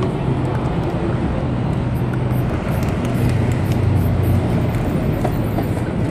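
Busy city street noise: a steady traffic rumble with a low hum underneath.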